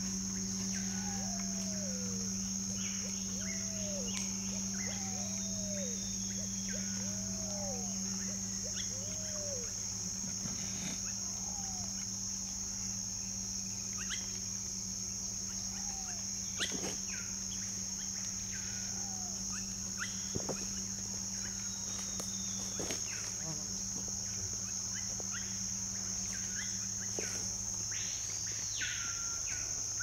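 Tropical forest insect chorus, a loud, steady high-pitched drone, with a steady low hum underneath. Over it a bird gives a run of arched whistled notes about once a second for the first eight seconds, then only now and then, with scattered short chirps from other birds.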